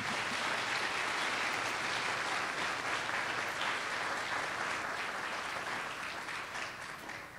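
Audience applauding, steady throughout and dying away near the end.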